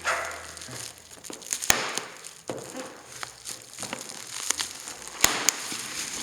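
Plastic packaging crinkling and tearing as a parcel is unwrapped by hand, with a few sharp snaps along the way.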